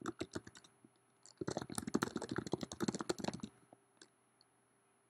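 Typing on a computer keyboard: a short run of keystrokes, a brief pause, then a fast run of about two seconds, and a couple of last taps about four seconds in.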